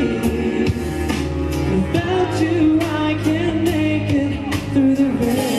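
Live male pop vocal singing a held, winding melody line over a backing track with a steady drumbeat.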